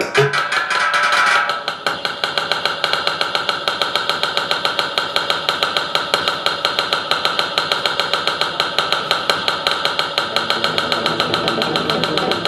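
Electronic music played live on synthesizer and electronics: a buzzy, machine-like drone pulsing at an even, fast rate. It changes from a busier texture into the steady pulse about a second and a half in, and lower notes come in near the end.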